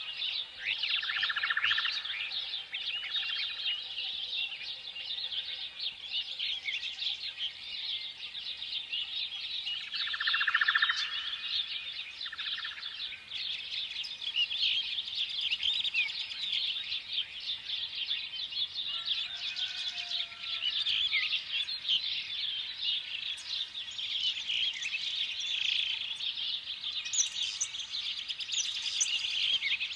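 Many small birds chirping together in a dense, continuous chatter, with a few louder, lower buzzy calls near the start and again about ten seconds in.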